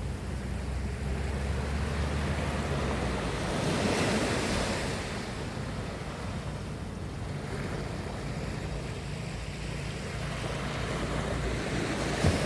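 Ocean waves washing onto the shore, one wave swelling up about four seconds in, with wind rumbling on the microphone and a short thump near the end.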